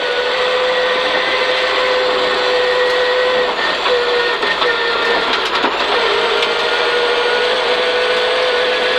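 Peugeot 306 rally car's engine, heard from inside the cabin, held at high, steady revs, with a few short dips in pitch about halfway through, over a constant hiss of tyre and road noise.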